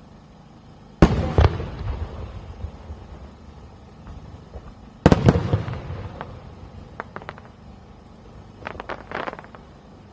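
Aerial fireworks shells bursting: two loud booms about four seconds apart, each trailing off in a rolling rumble, then two short clusters of smaller crackling pops near the end.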